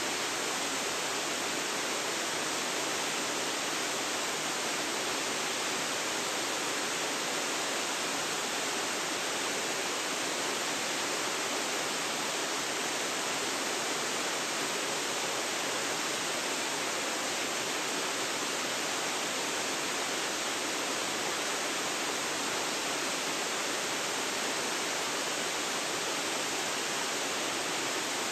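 Waterfall: water pouring and splashing in a steady, even rush with no breaks or changes, recorded on a phone's built-in microphone.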